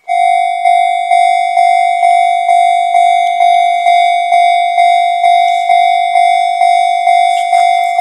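Japanese railway level-crossing warning alarm starting up and ringing its repeated 'kan-kan' tone about twice a second, the signal that a train is approaching and the barriers are about to lower.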